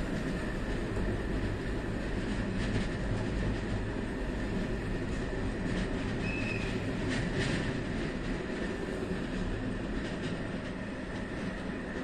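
Passenger train running along the line, heard from its rear BDs450 coach: a steady rumble of wheels on rails with a few faint clicks and a brief high squeal about six seconds in.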